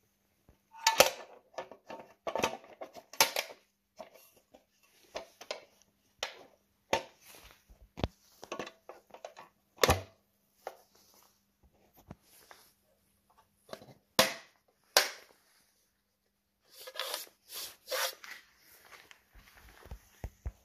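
Ford Model T coil box lid being handled and fitted over the trembler coils: irregular clicks, knocks and scrapes, with sharper knocks about a second in and about ten seconds in, and a cluster of rattling near the end.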